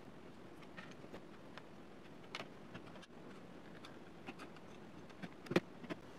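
Faint scattered clicks and ticks of a small screwdriver turning out the screws of a Lenovo Legion 5 laptop's heat-pipe cooling assembly. There is a short cluster of clicks with the loudest one near the end.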